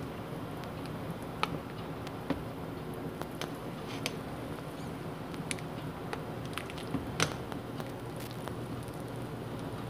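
Pot of soup boiling: a steady bubbling hiss with small pops and clicks scattered through it, a few of them sharper.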